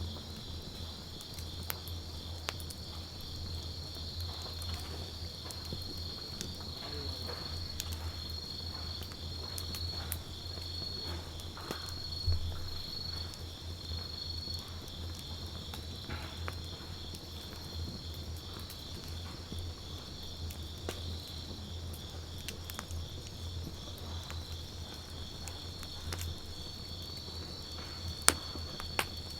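Wood campfire crackling with scattered small clicks and two sharper pops, one about twelve seconds in and one near the end, over the steady, pulsing high trill of insects.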